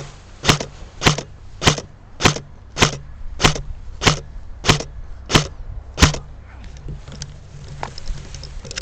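Airsoft gun firing single shots at a steady pace, about ten shots roughly 0.6 s apart, as covering fire. The shooting stops about six seconds in, leaving only faint ticks.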